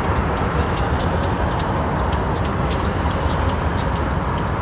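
Union Pacific diesel locomotive's engine running with a steady deep rumble while belching thick exhaust smoke, as a switcher working up to go to work. Sharp ticks come several times a second over it, with a faint high whine.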